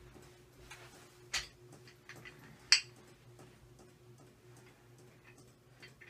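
Two sharp clicks, about a second and a half apart, the second louder and ringing briefly. They sit over faint scattered ticking and a steady low hum.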